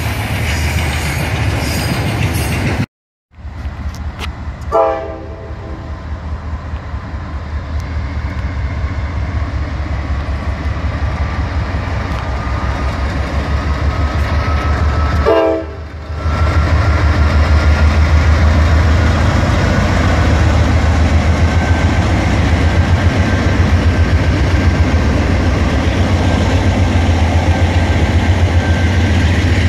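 Freight train rolling past with wheels clattering, then Norfolk Southern diesel locomotives sounding two short horn blasts, one about five seconds in and one about fifteen seconds in. The lead units then pass close by with a loud, steady, low diesel engine rumble.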